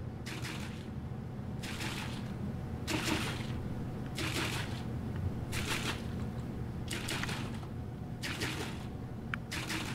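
Front-loading washing machine running a wash cycle: water and clothes slosh in the tumbling drum in regular swishes every second or so, over a steady machine hum.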